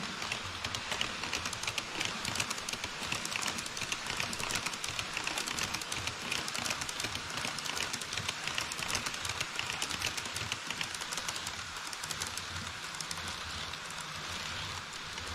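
HO scale model trains, an E5 series Shinkansen and an EH200 electric locomotive hauling Taki 43000 tank wagons, running over KATO Unitrack across a truss bridge: a fast, continuous clicking of metal wheels over the track with a low rumble underneath.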